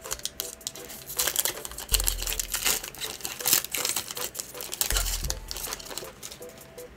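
Foil wrapper of a SkyBox trading-card pack crinkling and tearing as it is ripped open by hand: a dense run of crackles that thins out near the end as the cards come out.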